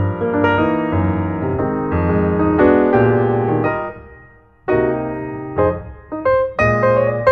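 Background piano music, a melody over low bass notes; it dies away about four seconds in and picks up again half a second later.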